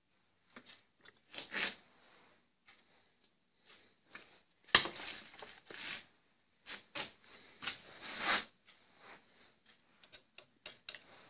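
Irregular clicking and rustling of small metal car parts and tools being handled, with a sharp clack about five seconds in followed by a short scrape.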